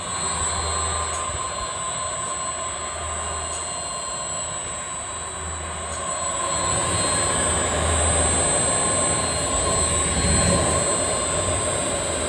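5 cubic foot V blender running: a steady motor hum with a constant whine, and a low rumble that swells and fades about every two and a half seconds. It grows a little louder about halfway through.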